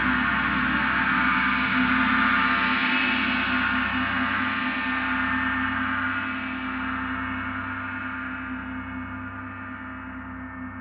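A large gong ringing out with many overtones over steady low hums, sustained for about four seconds and then slowly dying away, with no new strike.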